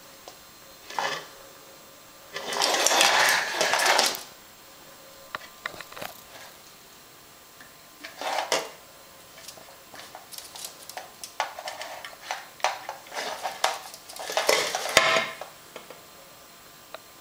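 A ferret knocks and pushes a plastic pet water bottle with a metal sipper tube along a wooden floor while drinking from it, making several bursts of clattering and scraping. Between the bursts comes a run of quick clicks.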